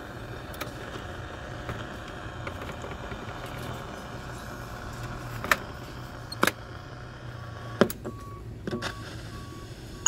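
Sharp clicks of the Zenith Z321B clock radio's buttons and slide switches being worked, three loud ones in the second half, over a steady low hum. A few short, faint beeps near the end.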